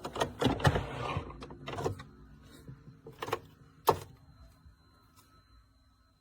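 Electronic sewing machine running briefly among a quick run of clicks and knocks, then a single sharp click about four seconds in.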